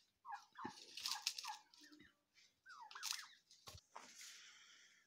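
Domestic turkeys making short high calls in quick runs, about a second in and again near three seconds, with some rustling between.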